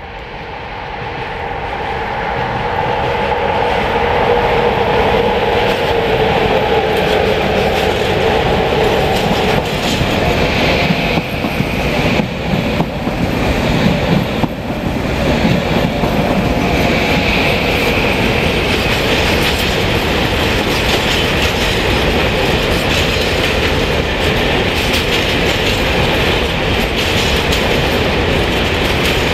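Trains passing through a station: an electric multiple unit runs by close at hand, and a freight train of covered hopper wagons rolls past with steady wheel clatter over the rail joints. The sound builds over the first few seconds. A steady whine is heard during the first half, and a high squeal comes and goes in the middle.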